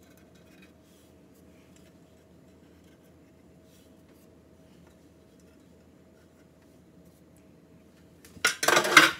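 Faint handling sounds as baked donuts are tipped out of a metal donut pan and set down on paper towel, over a faint steady hum. Near the end comes a loud clatter lasting under a second.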